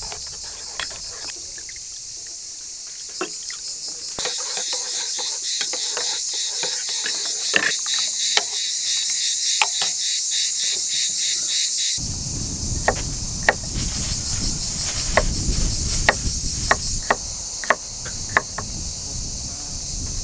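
Metal spoon clinking and scraping in an enamel bowl as red paste is stirred, over a steady chirring of crickets. About twelve seconds in the sound changes to sharp, irregular taps of a knife on a wooden chopping board as garlic is cut, with a low wind rumble.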